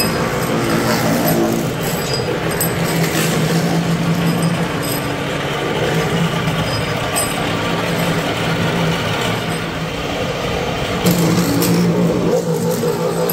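Two-die thread-rolling machine running steadily, its motor and drive shafts giving a constant low hum, with a few sharp metallic clicks. The tone shifts near the end.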